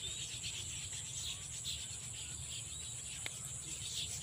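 Insects chirring steadily in the grass, with a low rumble beneath and a single faint click about three seconds in.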